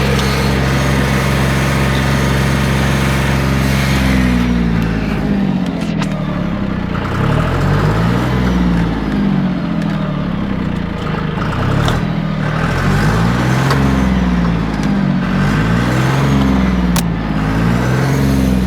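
John Deere engine running: steady for the first few seconds, then from about four seconds in its speed rises and falls unevenly over and over, a coughing, uneven run. There are a few sharp clicks along the way.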